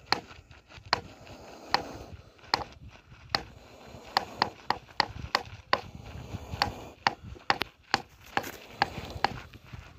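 A series of sharp knocks, about one a second at first, coming faster and closer together from about halfway through.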